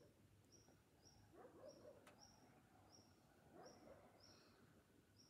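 Near silence outdoors, with a faint, high bird chirp repeated evenly about every two-thirds of a second and a single faint click about two seconds in.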